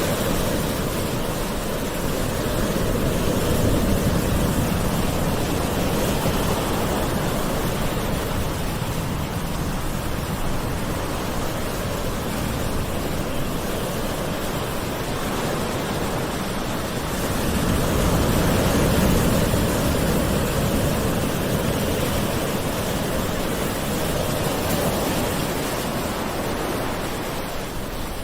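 Gentle ocean waves washing in, a steady rush of surf that swells louder twice, about fifteen seconds apart.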